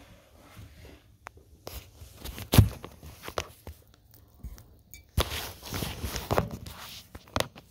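Phone being handled and set down on a table: knocks and cloth rustling close to the microphone, with the loudest knock about two and a half seconds in and a longer rustle a little after five seconds.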